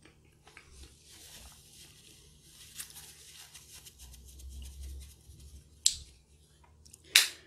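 Chewing a messy mouthful of cheesy food: a steady run of soft, wet mouth clicks and smacks. Near the end a paper napkin rustles against the lips, with two short, louder sharp noises.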